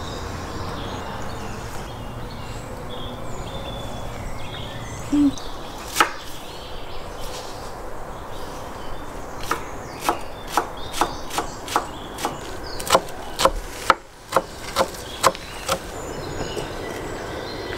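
Kitchen knife chopping fresh greens on a wooden cutting board: a run of sharp knocks, about two or three a second, through the second half.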